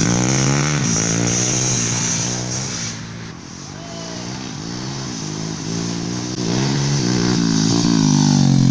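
Motorcycle with a Yamaha Jupiter Z four-stroke single-cylinder engine running, its pitch rising and falling again and again with the throttle. It goes quieter for a moment about three seconds in, then builds back up.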